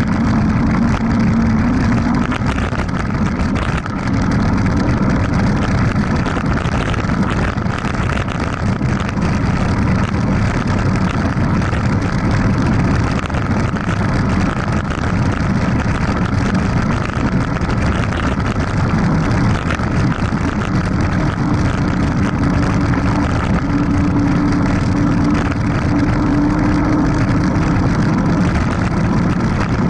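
Wind rushing over an action camera's microphone, mixed with the rumble of mountain bike tyres rolling fast down a dirt road. The noise is loud and steady, with a low hum running under it that rises slightly in pitch in the second half.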